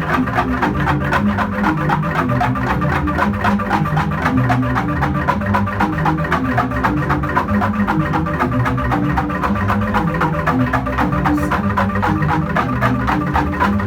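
Jegog, the Balinese bamboo gamelan, playing: a fast, dense stream of mallet strikes on bamboo tubes over deep, shifting bass notes from the large tubes, steady and unbroken.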